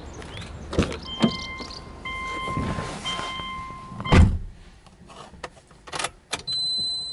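Subaru Legacy B4's warning chime sounding in three long tones while the 'door open' warning is shown, then the driver's door shutting with a heavy thunk. Near the end come two clicks and a steady high electronic beep lasting about a second, as the ignition is switched on.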